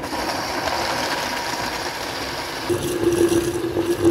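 Countertop blender switched on and running at full speed, churning frozen raspberries, oats and milk into a smoothie. About two and a half seconds in, a steady motor hum comes in over the churning.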